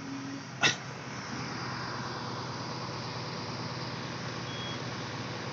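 Heavy vehicle engine running steadily, with one sharp knock about half a second in.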